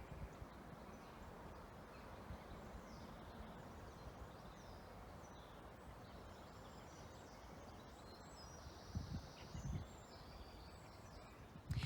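Quiet woodland ambience: faint, scattered bird chirps over a low rumble of wind, with a brief louder low swell about nine seconds in.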